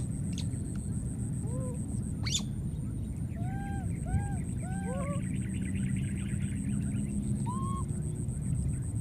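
Baby monkeys giving short rising-and-falling coo calls: one a moment in, a quick run of four or five a few seconds in, and one more near the end, over a steady low rumble.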